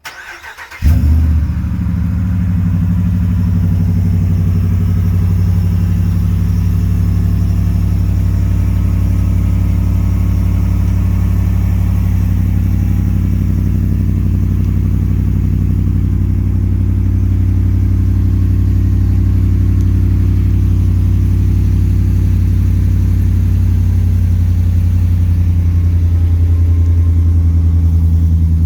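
Ram 1500 pickup's engine starting up: a short crank, then it catches with a loud flare just under a second in. It settles into a steady idle with a low exhaust rumble.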